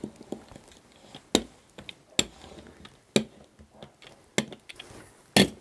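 A hand roller rolled and pressed over model railroad track and turnout to seat them in the adhesive, giving a series of sharp, irregular clicks and knocks, roughly one a second.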